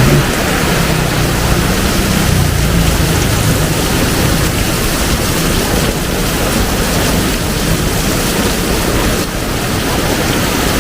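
Heavy tropical rain pouring steadily, a loud even hiss, with a low rumble under it in the first couple of seconds.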